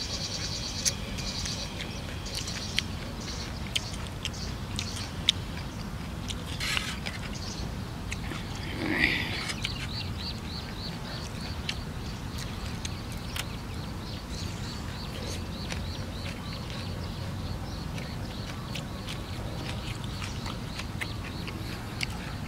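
Eating sounds: a metal spoon clicking against a metal tray, with mouth sounds of rice noodles and chili being eaten over a steady low rumble. A fast, even chirping runs through the second half, and a louder brief noisy sound comes about nine seconds in.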